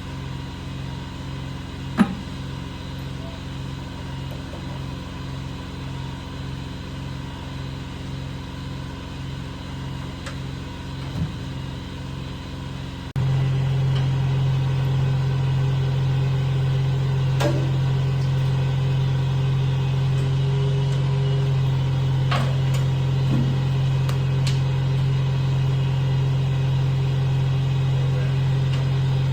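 An engine running steadily at idle with a low pulsing hum. About 13 seconds in it switches suddenly to a louder, steadier hum. A sharp click comes about 2 seconds in, with a few fainter clicks later.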